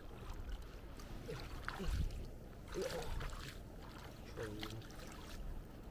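Shallow seawater sloshing and swirling around hands working in the mud to grab a mud crab, over a low steady rumble.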